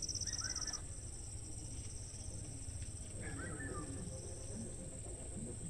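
Insects chirping: a steady high-pitched drone, with a rapid pulsing trill in the first second. Two faint short chirps come in, about half a second in and again past the middle.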